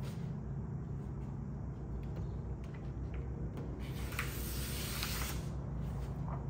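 Vinyl stripe film being worked by hand during a dry application: a few light ticks, then a longer rustling hiss about four to five seconds in. A steady low hum runs underneath.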